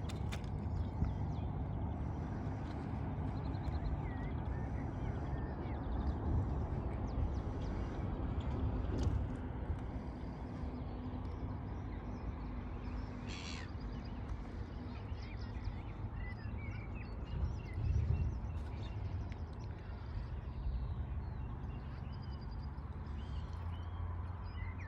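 Outdoor ambience: scattered short bird calls and chirps over a steady low rumble, with one louder call about thirteen seconds in.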